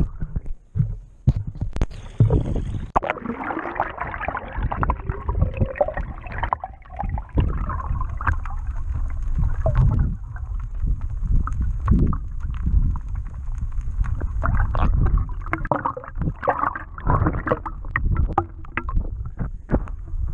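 Water sloshing and gurgling, heard muffled from below the surface through a submerged camera's waterproof housing, with uneven rushes of sound and little treble.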